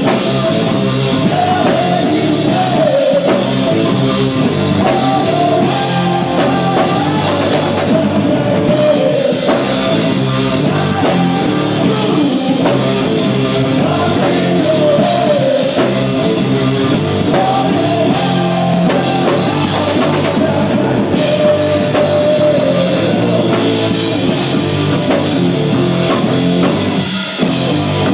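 Live rock band playing at full volume: electric guitars and drum kit, with a wavering melodic line above them.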